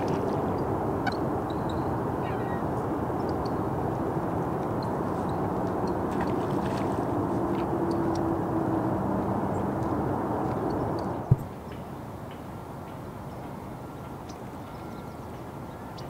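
Steady rumble of Highway 101 rush-hour traffic, with a few faint bird calls over it. About eleven seconds in there is a sharp click, and after it the rumble is quieter.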